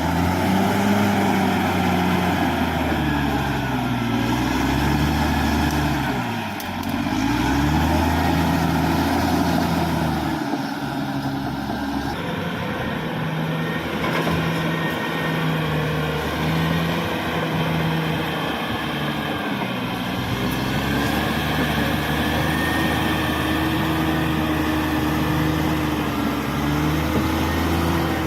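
Cat D6R XL bulldozer's diesel engine running under load, its note rising and falling repeatedly as the throttle is worked. About twelve seconds in the sound changes abruptly to a steadier engine note with occasional slow rises.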